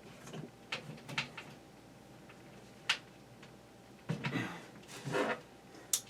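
Hands handling the parts of a box fan's power switch assembly: scattered light clicks and knocks, a sharper click about three seconds in, and short scraping, rustling handling sounds around four and five seconds in.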